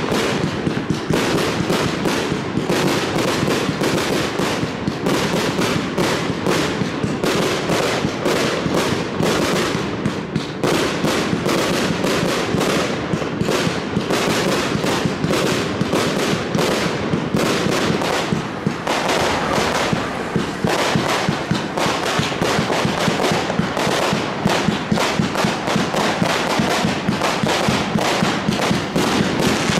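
Consumer firework batteries (cakes) firing in a continuous volley: rapid launch shots and aerial bursts, several a second, without a break.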